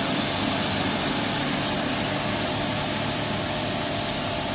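Tornado ASZ-3000 automatic rug washing machine running: a steady hiss with a low hum beneath it, from its high-pressure rinse water jets and rotating brushes.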